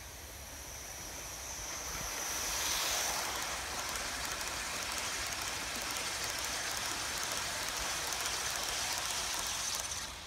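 Aster live-steam model train running past on garden track: a hiss and fine rattle of wheels on rail that swell to their loudest about three seconds in as the locomotive draws near, then carry on steadily as the coaches go by.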